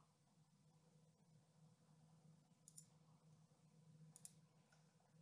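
Near silence, broken by two faint pairs of computer-mouse clicks, nearly three seconds in and again about four seconds in.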